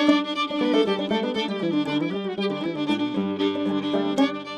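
Fiddle tune played as intro music: a fiddle melody over a quick run of plucked-string notes.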